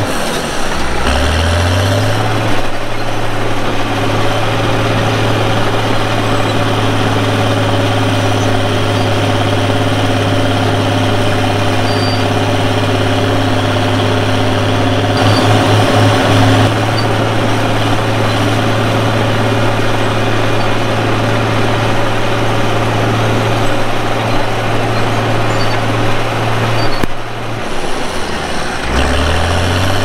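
Bulldozer's diesel engine running at high, steady revs while the blade pushes a load of clay. It revs up over the first couple of seconds; near the end the revs sag and climb back.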